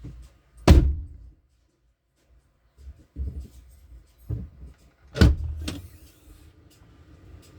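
Two loud thumps about four and a half seconds apart, like a car door being shut, with softer handling noises between them.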